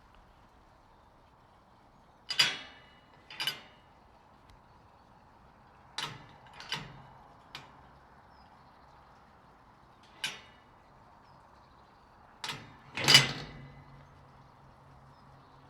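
A metal gate clanking and rattling: about eight sharp metallic clanks spread irregularly, some in close pairs. The loudest comes near the end, and the louder ones ring briefly.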